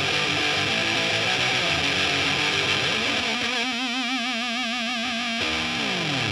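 Fuzz-distorted electric guitar, a Fender Stratocaster through an Electro-Harmonix Big Muff Pi into a Marshall amp, playing a heavy riff. About halfway through it settles on one held note with wavering vibrato, then slides down in pitch near the end.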